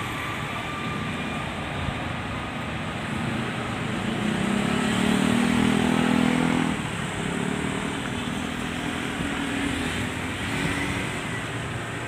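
Engine noise over a steady rumble, swelling to a pitched hum that is loudest from about four to seven seconds in, then dropping back.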